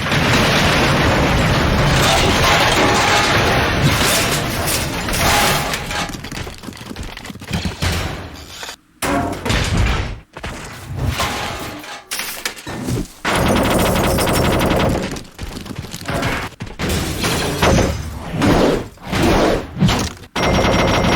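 Metal-on-metal crashing and bashing: a dense, continuous clattering crash for the first several seconds, then a run of separate loud metal impacts and smashes, some ringing on, with a fast metallic rattle near the middle.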